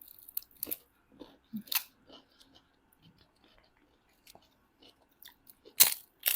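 Close-up eating sounds: chewing with scattered soft clicks and smacks. Two louder, brief crackling bursts come near the end.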